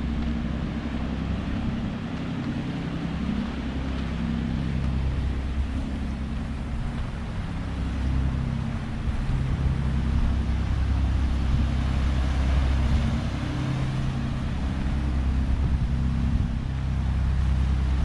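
Wind buffeting the microphone: a low rumble that swells and fades, heavier in the second half, over a steady rushing hiss.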